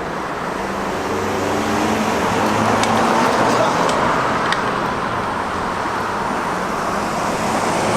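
Steady city street traffic noise: passing cars and a general roadway rumble.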